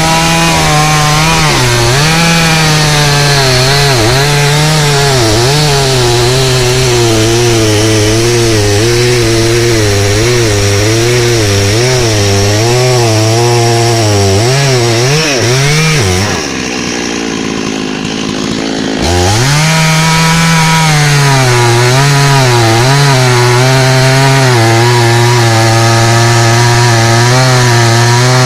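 Chainsaw running at full throttle and cutting into rain tree wood, its pitch dipping and wavering as the chain bites under load. A little past halfway the engine falls back toward idle for a couple of seconds, then revs up again and carries on cutting.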